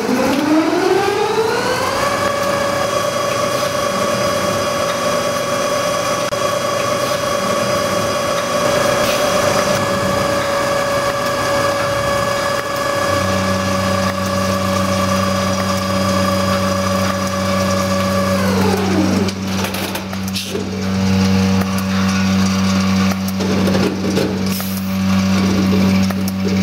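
JBF KW 765 automatic yarn ball-winding machine: its winding drive runs up to speed with a rising whine, holds a steady whine, then runs down with a falling whine about two-thirds of the way through. A steady low hum joins about halfway, and scattered mechanical clicks and knocks follow once the whine stops.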